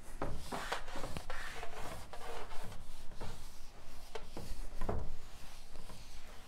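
Whiteboard eraser rubbing dry-erase marker off a whiteboard in a series of quick, uneven wiping strokes.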